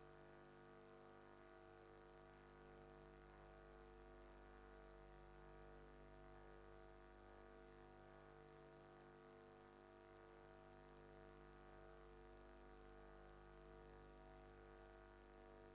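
Near silence with a faint, steady electrical hum and a faint high-pitched whine.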